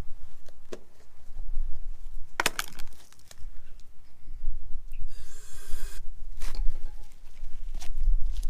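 Clicks, knocks and rustling of hands working on a lawn mower, with a hiss of about one second, about five seconds in, of carburetor cleaner sprayed from an aerosol can into the engine's intake.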